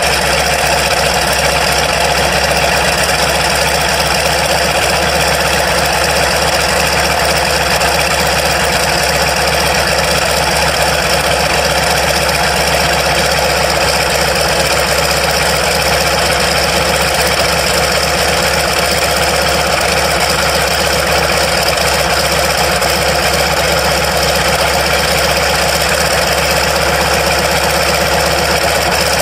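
PZL M-18 Dromader's ASz-62IR nine-cylinder radial engine running steadily at a constant speed on the ground.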